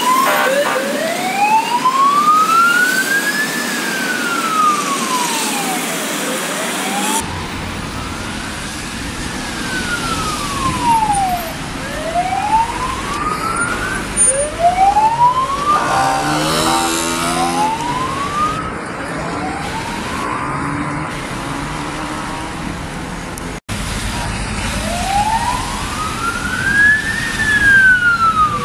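Police sirens on vehicles moving through traffic: a slow wail rising and falling in pitch, each sweep taking about five seconds, over the noise of tyres and engines. A short steady horn-like tone sounds about midway, and near the end the siren switches to a faster yelp.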